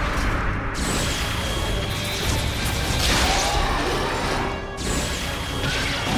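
Monster-movie fight soundtrack: music mixed with loud crashing and impact sound effects.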